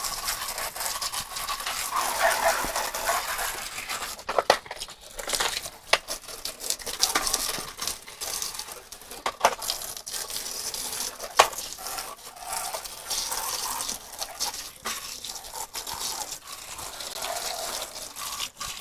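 Water running and splashing over dirty plastic vacuum-cleaner parts as they are rinsed and handled, with a few sharp plastic knocks; the loudest is about eleven seconds in.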